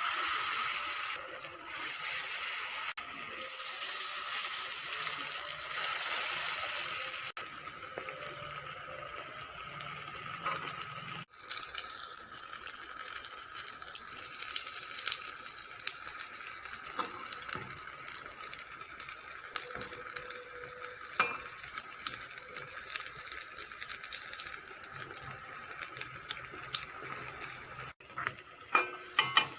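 Battered paneer pakoras deep-frying in hot mustard oil: a steady sizzle with scattered small pops, louder over the first several seconds and then settling.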